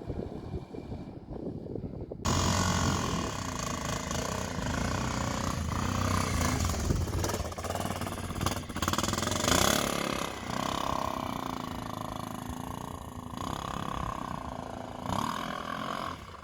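A vehicle engine running under load while driving off-road, with rough noise over it, starting abruptly about two seconds in.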